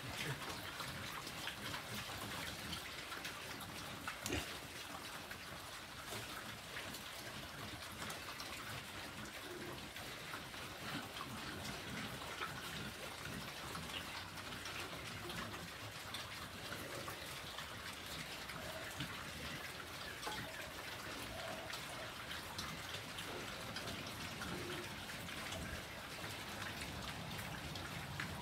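A herd of pigs feeding on chopped greens: a steady, dense crackle of many mouths chewing, smacking and rooting through the wet fodder.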